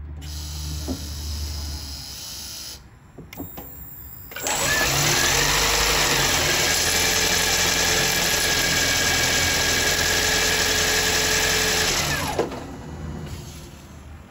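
Toyota Corolla Hybrid four-cylinder engine starting about four seconds in, running steadily with a whine for around eight seconds, then shutting off. It is run briefly after an oil change to circulate the fresh oil before the level is checked.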